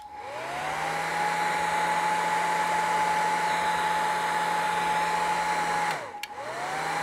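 Heat gun switched on, its fan whine rising to speed within about a second, then running steadily. Just before six seconds in it is switched off, a click follows, and it is switched straight back on and spins up again. It is warming leftover adhesive foam so it can be cleaned off.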